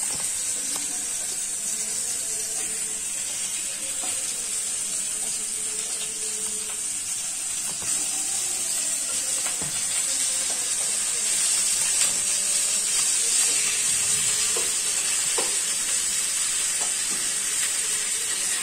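Onions frying in mustard oil and ghee in a steel kadai, a steady sizzle as marinated chicken pieces are dropped in. A few light clicks of a spoon against a steel bowl.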